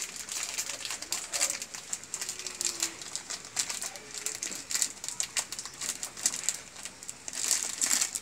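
Irregular clicks and rustles of handling, with a faint bird cooing a couple of times in the middle.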